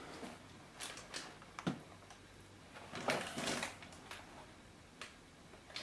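Handling noise from a mechanical keyboard being moved: a couple of light knocks, then a short rustling scrape about three seconds in.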